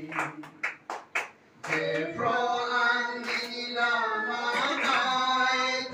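A few sharp hand claps, then a group of voices starts singing together, holding long notes.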